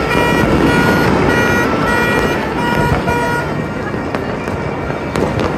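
A continuous din of distant firecrackers and fireworks crackling and popping across the city, with horns tooting in short repeated blasts that stop a little past halfway.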